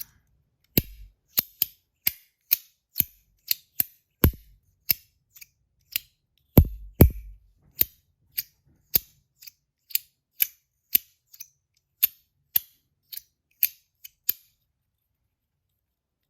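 Compoform V1.1 Mini slider fidget being slid back and forth: its plates snap into place with sharp clicks about twice a second, some landing with a heavier knock. The clicking stops about 14 seconds in.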